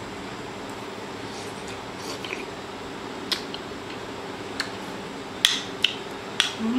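A person chewing and eating, with soft wet mouth smacks and a handful of sharp clicks in the second half.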